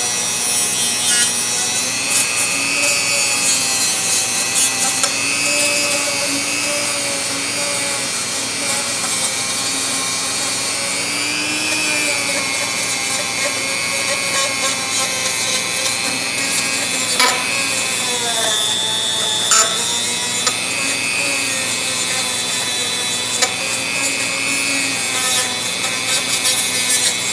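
Dremel rotary tool with a fiber abrasive wheel scrubbing rust off a steel ratchet. The motor's whine wavers up and down in pitch as the wheel bears on the metal, with a couple of sharp ticks past the middle.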